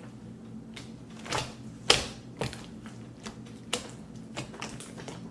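A large lump of mixed slime, full of beads and foam pieces, being squeezed and pulled by hand, giving off irregular sticky clicks and pops, the sharpest about two seconds in.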